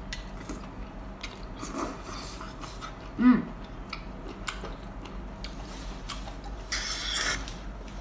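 Close-up eating sounds of octopus tentacle in chili sauce: wet mouth clicks and chewing, with a short pitched sound falling in pitch about three seconds in as the loudest moment, and a hissy slurp near the end.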